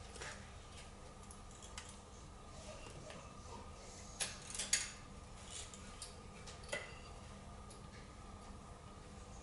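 Light metallic clicks and clinks of small parts and hand tools being handled on a motorcycle, scattered and faint, with a few sharper clinks a little after four seconds and just before five seconds, and one more near seven seconds.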